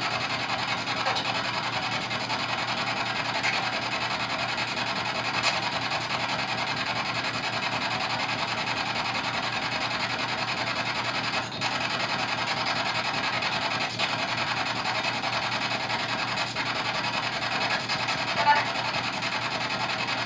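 Steady radio static from a P-SB7 spirit box sweeping through radio stations: a continuous hiss.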